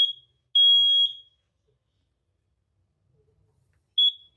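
Residential smoke alarm under test sounding its high-pitched three-beep fire pattern: the tail of one beep, then the last half-second beep about half a second in, then silence. A single short beep at the same pitch comes near the end.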